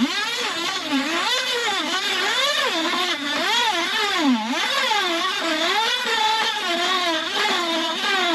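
RIDGID K-400 drum drain machine running a test with its shortened cable spinning out: a continuous whirring hum that keeps wavering up and down in pitch.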